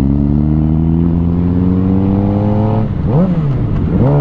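Sport bike engine pulling hard with revs rising steadily as the bike accelerates, then a brief drop and swing in pitch about three seconds in and again near the end, settling at lower revs.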